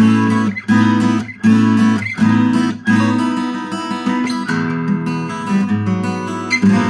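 A 1976 Japanese Yamaha FG-251 steel-string acoustic guitar with new 11-gauge strings, played unplugged: chords struck in a steady rhythm, about one every three-quarters of a second, then held longer and left ringing. Its plain tone is open, loud, resonant and bright.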